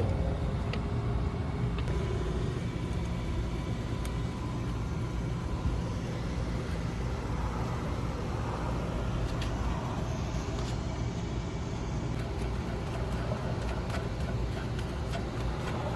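Steady low rumble with a few faint light clicks.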